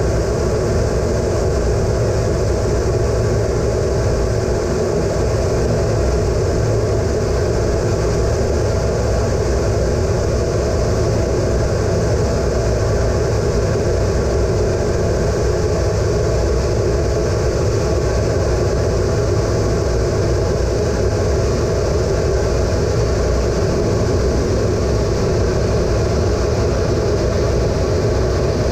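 Steady, unchanging cockpit drone of an A-10 Thunderbolt II: its twin GE TF34 turbofan engines and airflow noise, heard from inside the cockpit.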